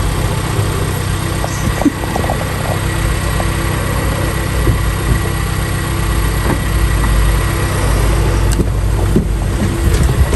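Car engine and road noise heard from inside the cabin while driving: a steady low drone with a few faint knocks.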